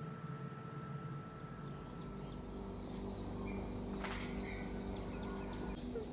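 Insects chirping, starting about a second in: a high, even pulsing trill of about six or seven pulses a second, with a second series of short repeated chirps beneath it, over a steady low hum.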